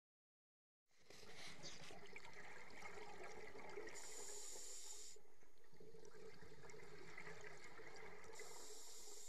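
A scuba diver breathing underwater through a regulator, heard from close by: a steady bubbling, gurgling wash of exhaled air, with two hissing surges about a second long and about four seconds apart. The sound comes in suddenly about a second in.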